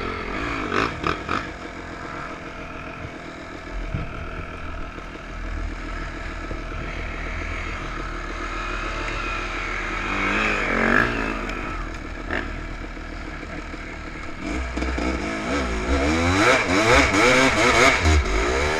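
Enduro motorcycle engine running and revving, its pitch rising and falling about ten seconds in and again near the end, where it is loudest, with some clattering.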